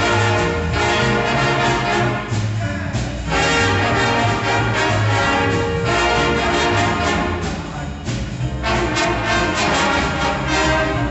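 Jazz big band playing a blues, the saxophone, trumpet and trombone sections over upright bass and piano, with two short breaks between phrases.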